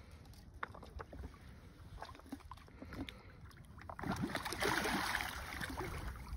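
Water splashing and swirling as a big blue catfish is let go at the bank and kicks off with its tail, starting about four seconds in and easing toward the end. Before that, only faint small laps and ticks of water.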